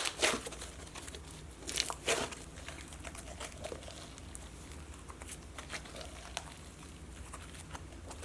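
Slime being squeezed and worked by hand, giving sticky pops and crackles: a burst of louder snaps at the start and about two seconds in, then fainter scattered clicks.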